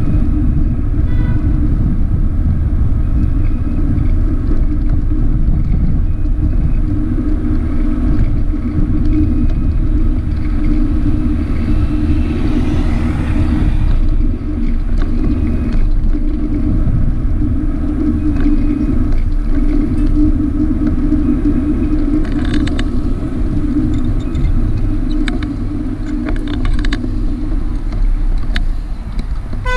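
Steady low road and wind noise picked up by a camera mounted on a moving vehicle driving along a city street.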